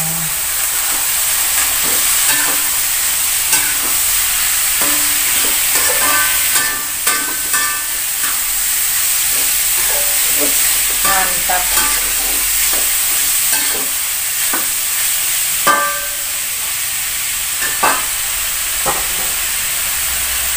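Kikil (beef skin) and tofu stir-frying in hot oil in a metal wok, a steady sizzle, with a metal spatula now and then scraping and clinking against the pan.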